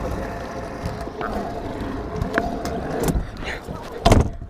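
Stunt scooter wheels rolling over concrete with a continuous rumble, heard through a camera mounted on the handlebars, with several knocks from the deck and bars and a loud knock about four seconds in as the scooter rolls onto a ramp.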